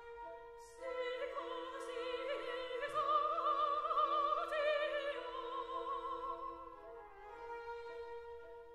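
Slow classical background music: held string chords under a high melody with vibrato in an operatic singing style. The melody enters about a second in, is loudest in the middle, and fades out around seven seconds in.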